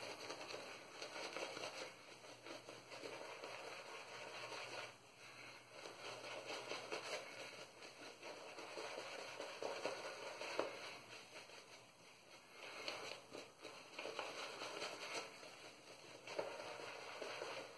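Stirling 26mm finest badger shaving brush working menthol soap lather over a stubbled face in circular strokes on the second lathering pass: a faint, wet crackling of lather that swells and fades with the strokes.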